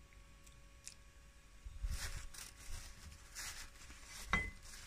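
Crunchy chewing of unripe green mango, then a metal spoon clinks once against a ceramic bowl with a short ring, about four seconds in.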